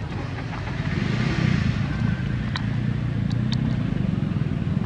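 Motor vehicle engine running steadily, a low hum, with a few short high ticks over it.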